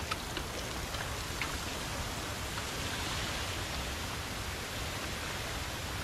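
Steady rush of flowing water at a stream crossing, with a few faint ticks in the first second and a half.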